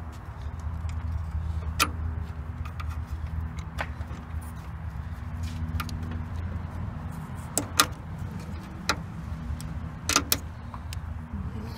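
A handful of sharp metal clicks and taps as a steel pick works the retaining clip off the ball-socket end of a hood gas strut. Under them runs a steady low hum.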